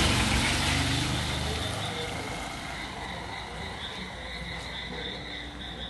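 A motor vehicle's engine fades away over the first two seconds. Under it, and then alone, insects keep up a steady high buzzing, like crickets.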